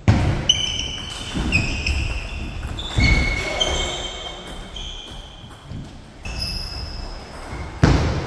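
Table tennis play in a hall: sharp ball strikes and footwork thuds, with high squeaks of players' shoes on the court floor.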